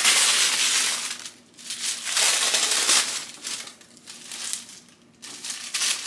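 Paper wrapping crinkling and rustling as it is pulled off a handbag, in two loud spells in the first three seconds, then softer rustles.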